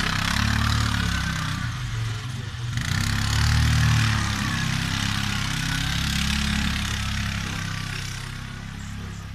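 Gladiator 510 ATV engine running under load and rising and falling in revs as it pushes snow with a front plow blade, loudest about four seconds in, over a steady hiss of snow scraped along by the blade.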